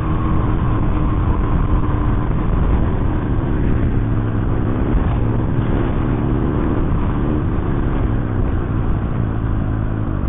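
Small four-stroke single-cylinder dirt bike engine running steadily while the bike rides along a gravel trail, heard from the bike's own camera.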